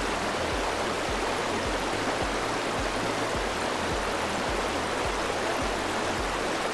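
Muddy rainwater rushing steadily down a gravel ditch, a dense even rush of water noise. A faint low beat of background music runs underneath.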